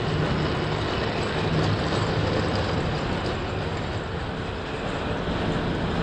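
Tinplate O gauge toy trains running on metal track, a steady rumbling rattle.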